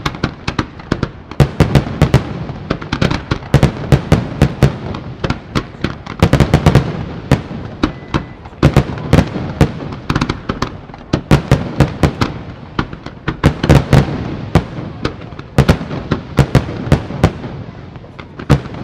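Fireworks display: aerial shells bursting one after another in a dense, continuous barrage, several sharp bangs a second over a constant low rumble.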